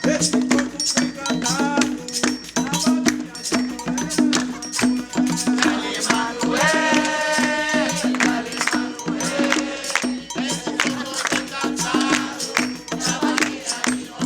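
Coco de roda song: a sung voice over a steady beat of shaker rattle and drum.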